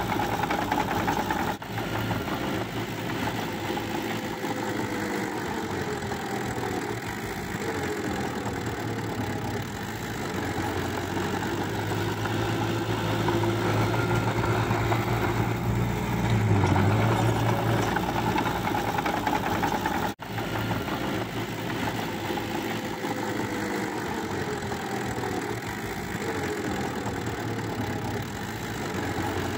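Small crawler bulldozer's diesel engine running steadily under load with a low drone, its pitch sagging slowly now and then. The sound breaks off for an instant about two-thirds of the way through.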